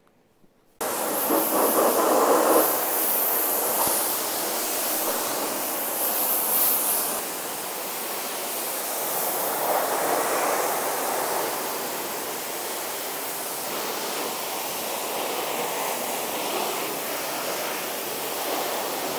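High-pressure washer jet hissing as it sprays the car's bodywork, rinsing off the hand-wash shampoo. It starts suddenly about a second in and runs steadily, a little louder in the first few seconds.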